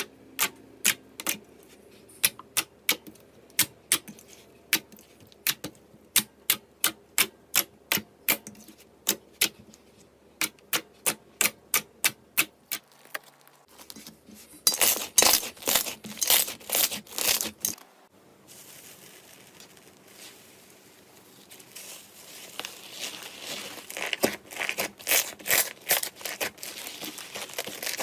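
Slime being handled and pressed, first with sharp clicks and pops about two or three a second, then a few seconds of dense crackling about halfway through and again near the end.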